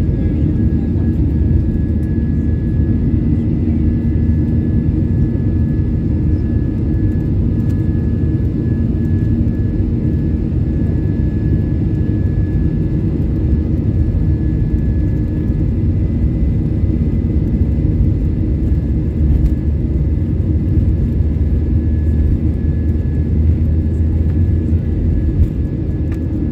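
Cabin noise of a jet airliner taxiing: engines running at a steady low setting, with a low rumble and a thin steady whine heard from inside the cabin.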